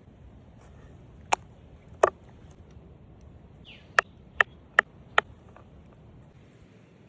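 Sharp knocks, like chopping strikes on a hard surface: two single strikes, then four in quick succession about two and a half a second.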